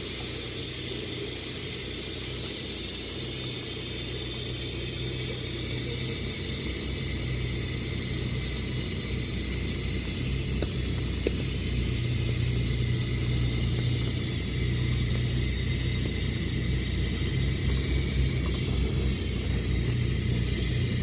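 Electric welding arc on carbon steel plate, a steady sizzling hiss as the bead is laid in the horizontal position, with a steady low hum beneath it.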